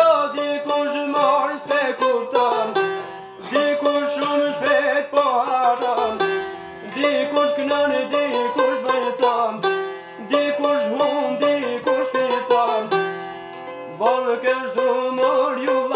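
Çifteli and sharki, Albanian long-necked lutes, playing an instrumental break in a folk song: a fast plucked melody in phrases that repeat about every three to four seconds.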